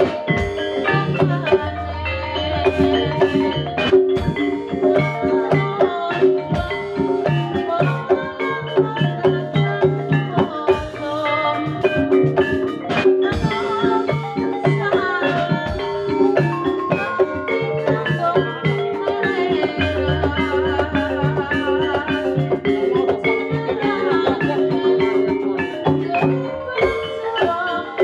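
Music for a jaranan hobby-horse dance: Javanese gamelan-style metallophones and drums playing a steady, repeating rhythm.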